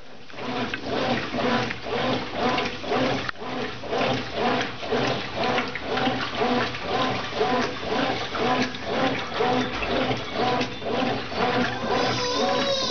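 Brastemp Ative 11 kg top-load washing machine agitating a medium load of water and laundry: water sloshing and swishing in a steady back-and-forth rhythm during the wash stage.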